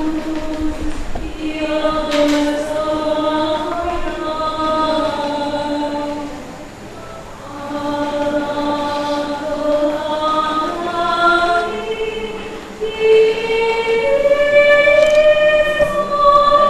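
A woman singing a responsorial psalm solo into a microphone, in long held notes. There is a short soft gap about seven seconds in, and the melody climbs higher over the last few seconds.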